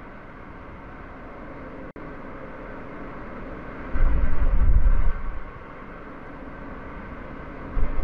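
A car driving along a paved road: steady road and tyre noise, with heavy low rumbles for about a second, about four seconds in, and again near the end.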